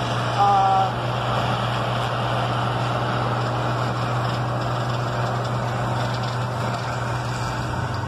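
Steady engine drone, a constant low hum under an even hiss, heard from inside a vehicle's cabin while a diesel combine harvester works the field outside.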